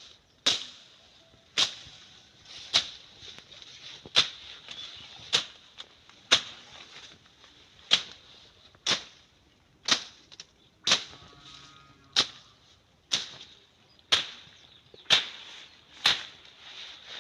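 A slasher (hand-swung grass-cutting blade) cutting through grass and brush in steady strokes, a sharp swish-and-cut about once a second, some sixteen in all.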